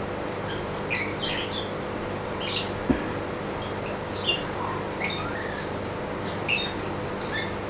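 Small birds chirping now and then, short high chirps scattered through, over a steady low hum. A single sharp knock about three seconds in.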